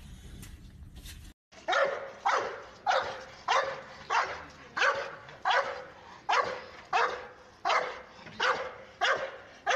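A large bully-type dog barking over and over in a steady rhythm, about one and a half barks a second, starting about a second and a half in while it lunges on its leash.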